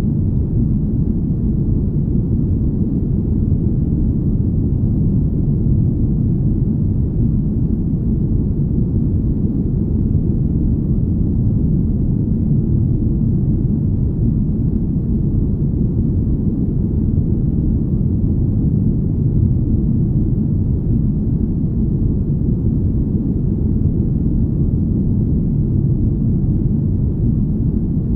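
Steady, smooth deep rumble: low, even noise with almost no high end, the drone of a spaceship-cabin ambience.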